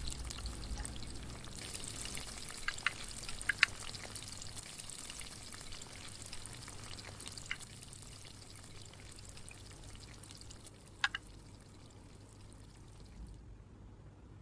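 A sizzling frying sound effect, a steady hiss that slowly fades and cuts off suddenly near the end, with a few light clicks.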